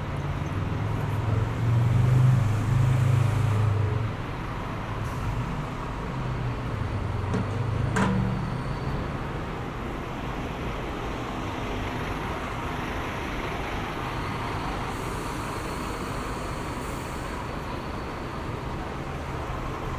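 Street traffic: a vehicle engine rumbles past loudest about two to four seconds in, with a smaller pass a few seconds later and a single sharp knock about eight seconds in, over steady road noise.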